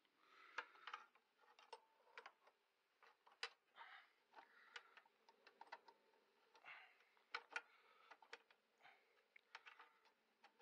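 Faint, irregular clicks and short scrapes of needle-nose pliers working small metal parts on a tractor's travel control linkage.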